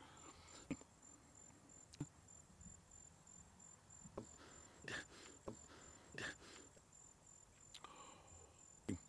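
Crickets faintly chirping in a steady, high, pulsing trill over near silence, with a few brief soft clicks scattered through it.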